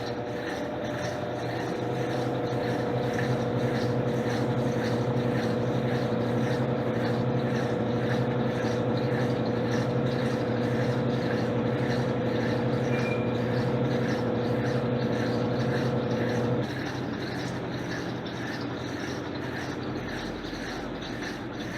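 Electrolux LTC10 washing machine running mid-cycle: a steady motor hum builds over the first couple of seconds, then cuts off suddenly about three-quarters of the way through, leaving a quieter whir.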